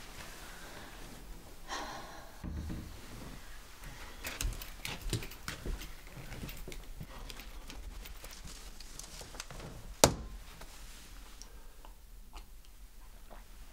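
Quiet indoor room tone with faint rustles and light knocks of a person moving about. One sharp knock about ten seconds in is the loudest sound.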